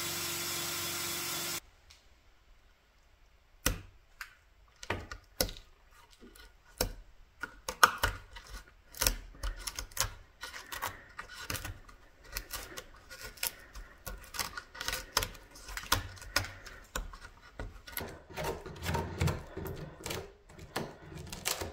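A wire wheel in a cordless drill spins against black walnut and stops abruptly about a second and a half in. After a short quiet gap, a steel awl and chisel pick and pry loose, punky wood out of a crack in the walnut, making irregular sharp clicks and scrapes. These grow denser and heavier toward the end.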